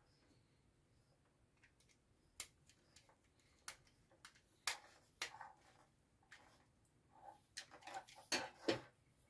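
Sharp, scattered plastic clicks and taps from handling a plastic relay socket and its wires, with the loudest two close together near the end.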